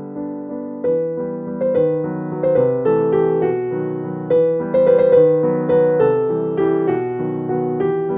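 Background music: a gentle piano melody with struck notes over sustained chords.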